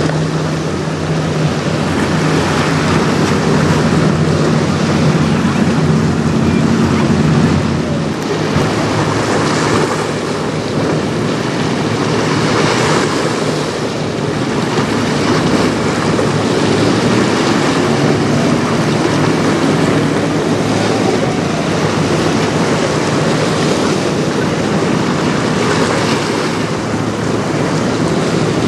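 Wind buffeting the microphone over choppy river water, with the steady low hum of a sailboat's engine as it motors past under power; the engine hum stops about eight seconds in, leaving the wind and water noise.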